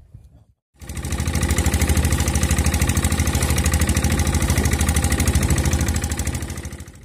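Boat engine running close by with a fast, even knocking beat. It starts abruptly about a second in, after a brief dropout, and fades away near the end.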